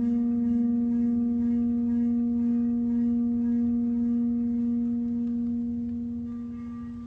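A steady ringing tone with a few higher overtones, held and then slowly fading over the last two seconds: the kind of sustained tone used to vibrate sand into patterns.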